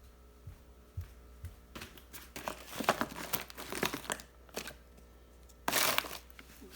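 Crinkling and rustling of something being handled: a run of dense crackles through the middle, and a short, louder rustle near the end.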